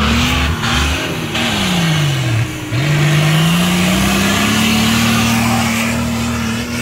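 Off-road 4x4's engine revving hard under load on a loose dirt climb. The revs fall away about two seconds in, then climb back and hold high.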